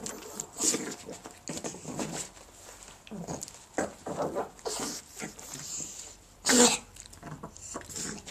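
Flat-faced dog snorting and snuffling in irregular short noisy bursts with its face down at its paw, with one loud snort about six and a half seconds in. It is the obstructed, noisy breathing of a dog with extreme brachycephaly.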